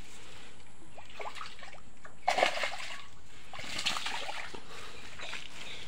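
Water splashing and sloshing in a shallow, muddy creek, with two short bursts of splashing about two and four seconds in.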